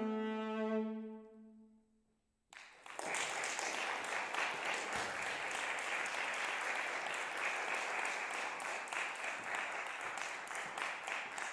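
The final bowed note on a solo viola rings and fades out over about two seconds. After a short hush, an audience breaks into steady applause about two and a half seconds in.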